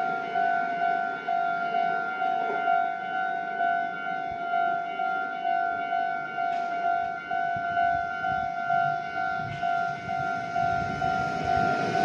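Japanese railway level-crossing alarm ringing: electronic bell tones repeating evenly, about twice a second, while the crossing is closed for an approaching train.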